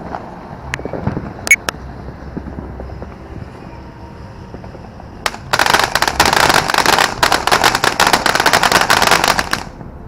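Consumer firework going off: a few scattered sharp pops, then about five seconds in a single crack followed by a dense, rapid string of crackling pops for about four seconds that stops abruptly.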